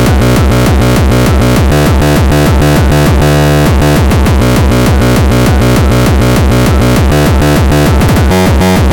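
Frenchcore electronic music at 200 BPM: a heavily distorted kick drum hits about three times a second, each hit sweeping down in pitch, under layered synthesizer lines.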